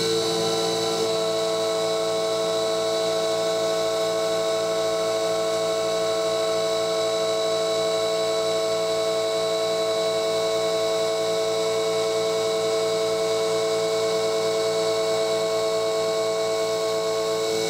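A CNC mill's BLDC spindle motor running a 45-degree chamfer mill through 6061 aluminium under coolant spray: a steady whine of several held tones over a hiss, with one more tone joining about a second in.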